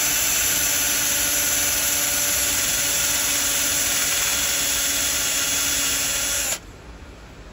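Power drill running at a steady speed with an even whine, driving a counterbore cutter into a bolt hole in a Subaru EJ25 engine block to seat a Time-Sert thread insert. The drill stops suddenly about six and a half seconds in.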